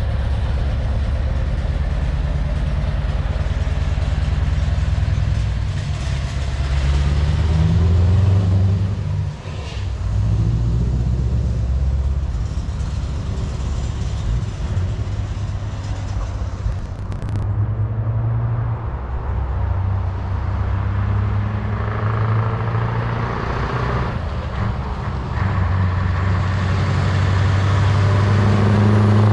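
Scania V8 diesel truck engines running under load as the trucks drive by. Near the end a Scania 143's V8 grows louder as it comes closer.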